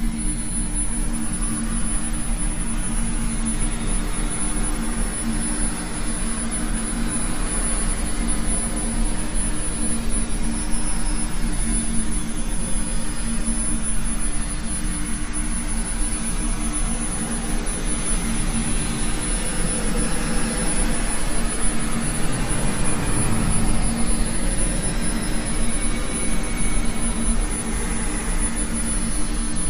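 Steady rumbling drone with a low hum held underneath, growing a little louder in the second half.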